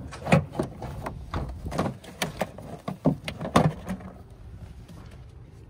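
Hard plastic knocking and scraping as the top half of an engine air box housing is worked loose and slid out: about eight quick, irregular clatters over the first four seconds.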